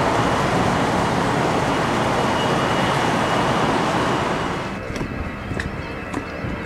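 C-5 Galaxy's General Electric TF39 turbofan engines at takeoff power as the aircraft climbs away: loud, with a steady high whine over the noise. About four and a half seconds in it drops off sharply to a quieter background with scattered short clicks.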